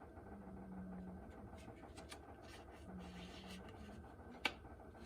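Faint scratching and rustling of paper being handled and positioned, with one sharp click near the end.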